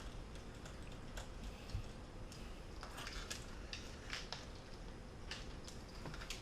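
Faint, irregular clicks and ticks of small screws and a precision screwdriver being handled as the display's mounting screws are started into the aluminium case.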